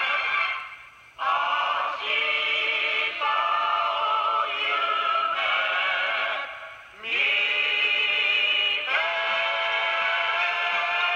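Singers with a band holding long chords that change every second or so, with two short drop-outs, about a second in and around seven seconds in.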